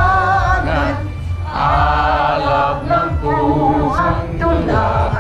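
A group of men and women singing a national anthem together, unaccompanied, in drawn-out phrases with short breaks between them.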